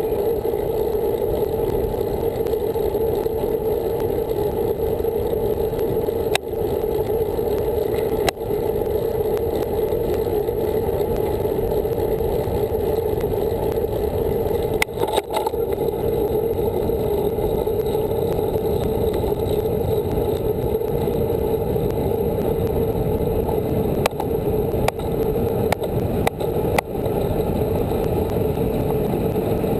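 Steady rush of wind and tyre noise from a road bike ridden at speed, picked up by a handlebar-mounted camera, with a few short clicks from bumps in the road.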